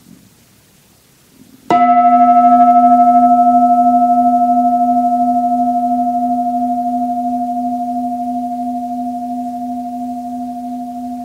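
A singing bowl struck once, a little under two seconds in, ringing on two steady tones, a low hum and a brighter note above it. Its higher overtones die away within a second or two, while the main tones fade slowly with a gentle wavering pulse.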